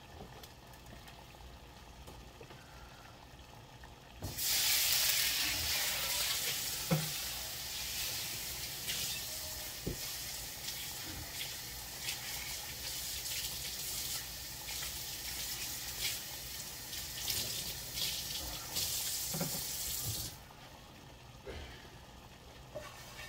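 Water running from a kitchen tap, turned on about four seconds in and off about sixteen seconds later, with a few light knocks and clinks while it runs.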